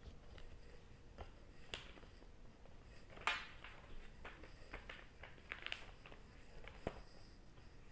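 Hand-coloured paper blind bag being handled and turned over: faint scattered crinkles and taps of paper, with a sharper crackle about three seconds in and a tap near the end.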